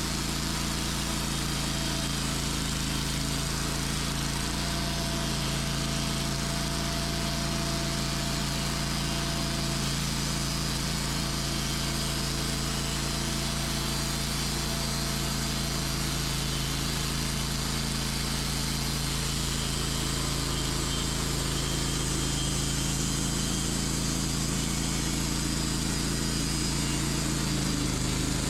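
Sawmill engine running steadily while the blade cuts through a pin oak log, a constant engine drone under a broad hiss of cutting.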